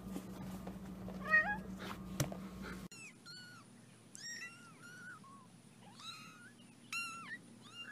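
A cat meows once, rising in pitch, about a second in. From about three seconds in, young kittens mew over and over in short, high-pitched cries.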